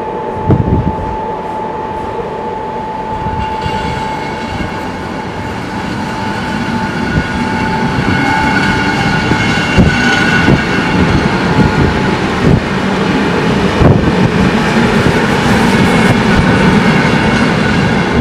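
Czech Railways class 460 electric multiple unit running through the station, its wheels clacking over rail joints and points as the cars go by. A steady whine sounds in the first few seconds, and higher whining and squealing tones join in from about four seconds in, while the sound grows louder.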